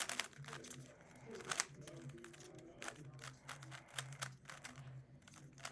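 Plastic 3x3 speed cube being turned fast, its layers clicking and clacking in quick, irregular strokes.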